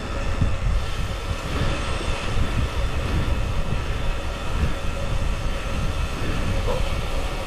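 Wind buffeting the microphone of a camera on a moving road bicycle, a steady rumbling rush with road noise underneath.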